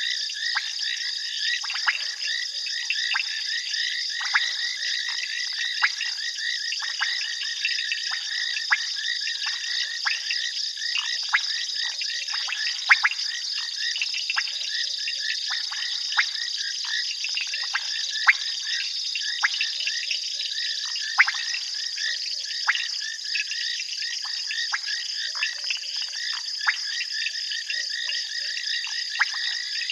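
A dense frog chorus: a steady high-pitched trilling, with many short clicking calls scattered through it and a few louder ones standing out.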